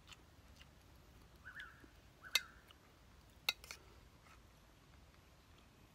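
A metal spoon clinks sharply against an enamel bowl twice, about two and a half and three and a half seconds in, among quiet eating sounds and a few faint short chirps.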